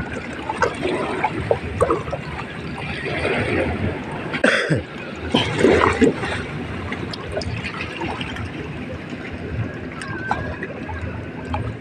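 Water trickling and lapping, with a couple of louder sloshes about four and a half and six seconds in.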